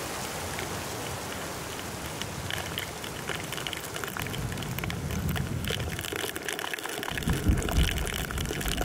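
Rain falling, a steady hiss with many sharp drop hits on a hard surface that thicken from about two seconds in. A few low thuds come near the end.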